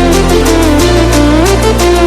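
Background music with a steady beat: a melody over sustained bass notes.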